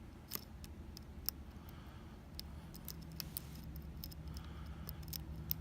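A lock pick probing the pins of a Kaba Quattro S dimple lock while searching for a binding pin: irregular small metallic clicks and ticks, with a few sharper clicks among them.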